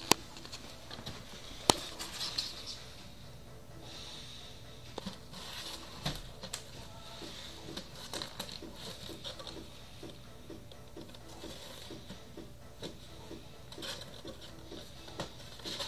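A cat with its head in a cardboard tissue box, nosing and crunching dry kibble: a few sharp clicks and rustles of kibble against cardboard, then steady chewing crunches about three a second.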